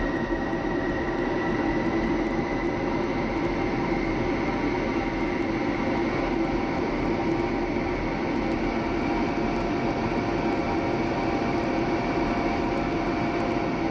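F-16 fighter's jet engine heard from inside the cockpit while the jet taxis and lines up on the runway: a steady whine over a rumble. The whine rises slightly about two seconds in and drops back near the end.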